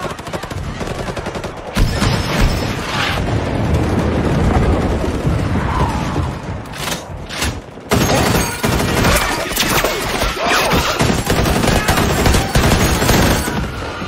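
Sustained rapid automatic gunfire from mounted, belt-fed machine guns in a battle sound mix. The fire dips briefly about seven and a half seconds in, then resumes.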